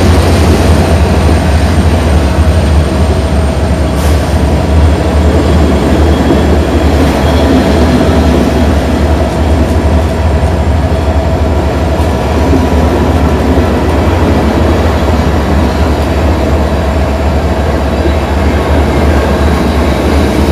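Passenger train coaches rolling past along the platform track: a steady rumble of wheels on rails.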